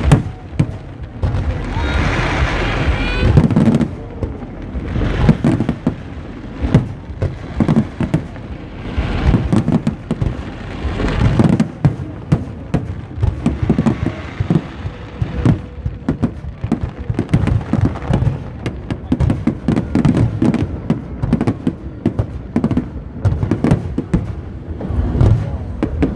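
Fireworks display: aerial shells bursting in a dense, irregular barrage of bangs and crackles, several a second, over a continuous low rumble.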